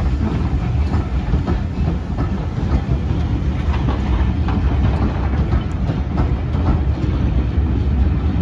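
Railway passenger coaches rolling past close by, a steady rumble with the wheels clicking over the rail joints.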